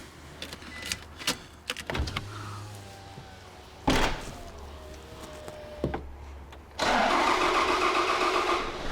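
Toyota Hilux 2.5 litre D4D four-cylinder diesel starting: a few clicks and a sharp clunk, then about seven seconds in the engine fires and settles into a loud, steady run. It starts after its hand-primed fuel system is refilled, the blocked fuel tank that caused the crank-no-start now cleared.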